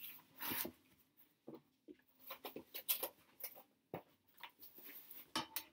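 Cotton t-shirt rustling and scraping as it is pulled and worked down over a frame of wire coat hangers and cardboard: irregular short rustles with a few light clicks.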